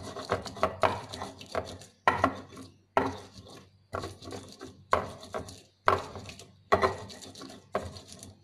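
Stone pestle grinding spices in a stone mortar (Indonesian ulekan and cobek), stone on stone. It gives a sharp knock about once a second, each followed by a short scrape.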